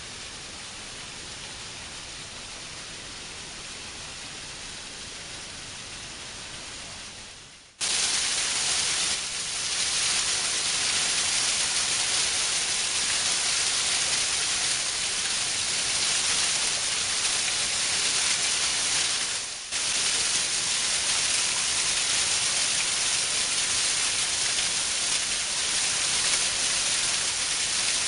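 Waterfall: a steady rush of falling water. It is softer for the first several seconds, then jumps abruptly much louder about eight seconds in and stays so, with a brief dip about twenty seconds in.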